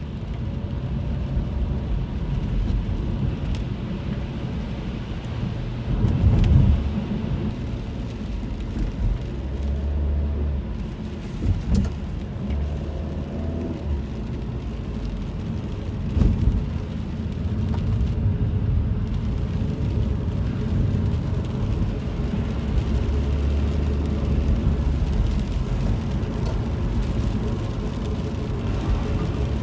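Inside a car driving in the rain: a steady low rumble of engine and tyres on the wet road, with louder swells about six and sixteen seconds in.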